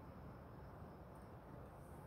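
Near silence: faint steady background noise.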